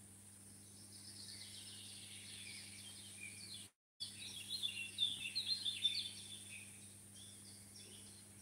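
Small birds chirping and twittering in quick high notes, busiest and loudest a little after the middle, over a faint steady hum. The sound drops out completely for a moment just before the middle.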